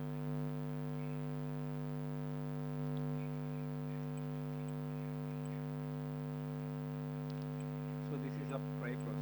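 Steady electrical mains hum with a buzzy edge, unchanging throughout. A faint voice is heard briefly near the end.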